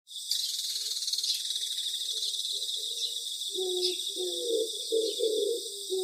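Nature soundtrack: steady high-pitched chirring of crickets, joined about halfway through by a lower call repeated in short notes.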